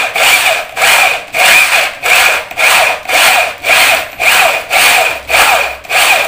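Corded drill with a concealed-hinge boring bit cutting the hinge cup hole in a wooden cabinet door, run in short pulses about twice a second, the bit scraping through the wood with each pulse.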